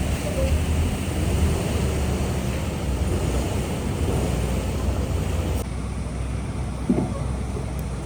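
Steady low rumble of heavy machinery on a concrete job site, with wind noise on the microphone. The higher hiss drops away suddenly about five and a half seconds in.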